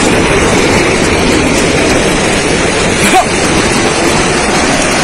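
Steady loud rushing rumble of a mine waste heap sliding as a landslide into a flooded pit and churning up a surge of water. A short cry cuts through about three seconds in.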